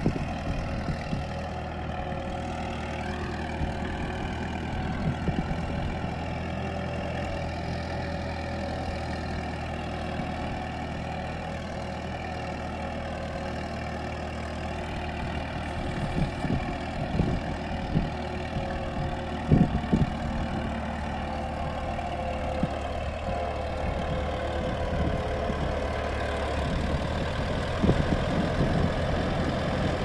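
Vintage Fordson tractor's four-cylinder side-valve engine running steadily under load as it pulls a trailed plough, with a few clanks partway through and near the end.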